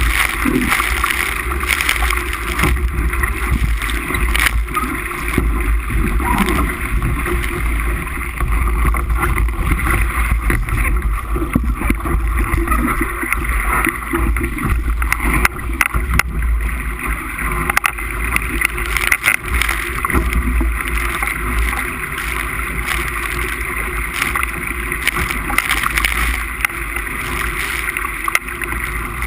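Wind buffeting the microphone and water rushing along the hull of a Musto skiff sailing fast in gusty wind, a steady loud rush without break.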